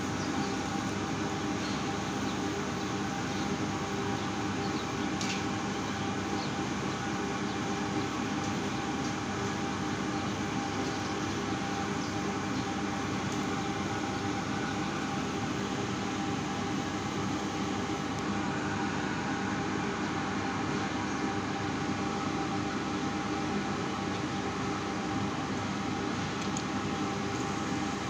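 A steady, unchanging hum made of several held tones, like a machine drone, with no rhythm or breaks.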